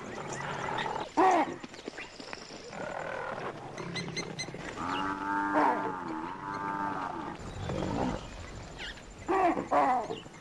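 African buffalo bellowing in distress as lions attack it: a short loud call about a second in, one long drawn-out bellow in the middle, and two more short calls near the end.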